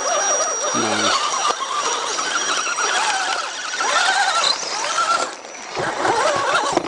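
Electric motor and gear drive of a radio-controlled scale rock crawler whining as it climbs over rock, the pitch wavering up and down with the throttle, with a faint steady high whine throughout.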